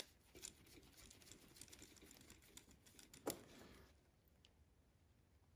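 Faint clicking and scraping of a screwdriver turning a terminal screw on an electrical receptacle, clamping spade terminals down, with one sharper click a little over three seconds in.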